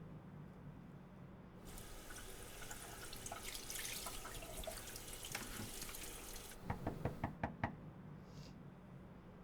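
Water running from a tap into a sink for about five seconds, then shut off, followed by a quick run of about six knocks.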